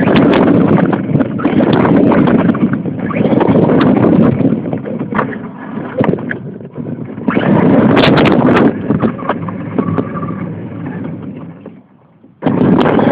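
A radio-controlled car being driven, picked up by a cellphone mounted on it: a loud, rough rumbling and rattling full of sharp clicks. It eases off twice and nearly stops about twelve seconds in, then comes back at full strength.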